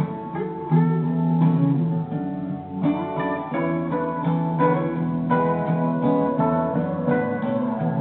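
Instrumental music on a plucked string instrument, notes picked in quick succession.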